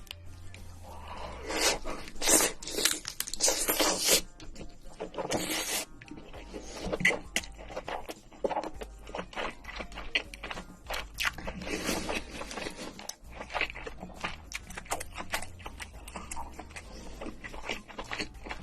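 Close-miked eating of red king crab: biting, chewing and crunching, with the shell scraping, a run of loud bites and crunches in the first few seconds, then quieter chewing and clicking.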